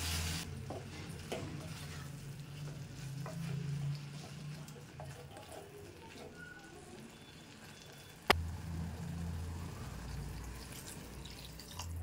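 Wooden spatula stirring and scraping greens in an aluminium pot, with a frying sizzle that stops about half a second in and small scrapes and knocks after it. One sharp click about eight seconds in, over a low steady hum.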